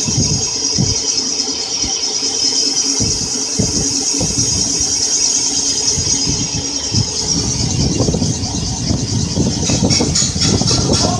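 Cylinder boring machine running with its boring bar inside a cylinder of a cast-iron engine block: a steady machine hum with a high whine over it, and irregular low knocks and rattles from about three seconds in.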